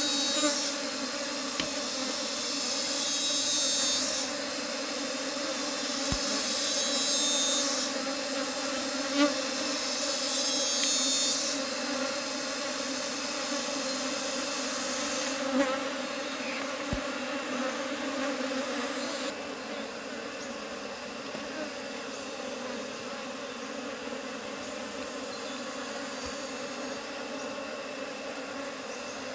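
Honeybees buzzing in a steady hum. Over it, a high-pitched insect trill comes in repeated phrases of about three seconds during the first half, then fades.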